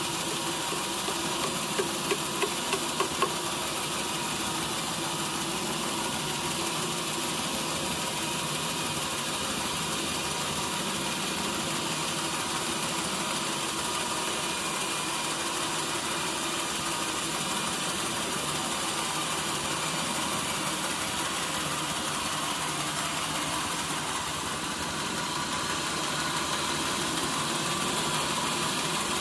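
Sawmill machinery running steadily: a constant mechanical drone with a faint steady tone through it. About two seconds in there is a quick run of five sharp knocks.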